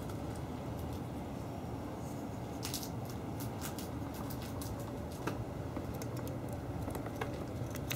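Light scattered clicks and scratches of a grey squirrel's claws on a doormat and metal door threshold, a quick cluster a little before the middle and single ticks after, over a steady low rumble of background ambience.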